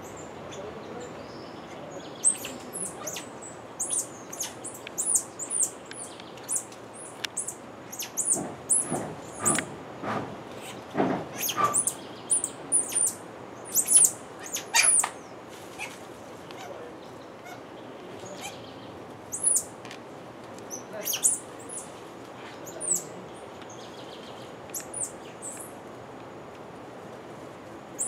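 Central American squirrel monkeys giving many short, very high-pitched peeping calls. The calls come thick and fast for about the first fifteen seconds, then thin out to scattered peeps. A few louder rustling noises come around the middle.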